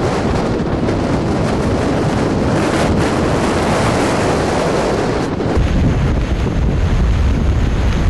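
Steady rushing noise of wind buffeting the microphone, mixed with the roar of the Tortum waterfall. About five and a half seconds in, the hiss drops away and a deeper low rumble takes over.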